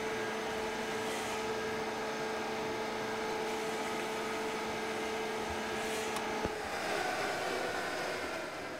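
Electric motor of a woodworking mortising machine running with a steady hum. About six and a half seconds in the hum's tone cuts out with a click and the machine sound changes.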